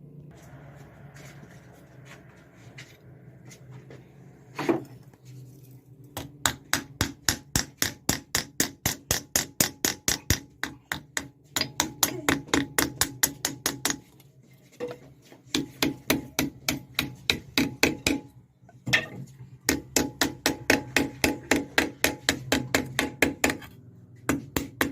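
Blacksmith's hand hammer striking metal on an anvil: a single blow, then quick even strikes at about four a second in three runs with short pauses between them. A steady low hum runs underneath.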